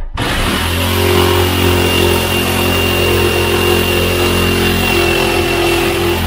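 Hand-held power drill running steadily under load, drilling into the wall, with a steady motor hum and a high whine.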